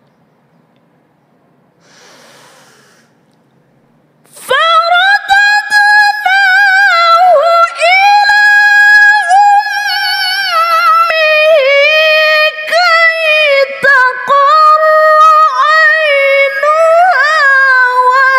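A woman reciting the Quran in the melodic tilawah style, beginning about four seconds in after near quiet. She holds long, high, sustained notes, winding them with wavering ornaments and brief breaks.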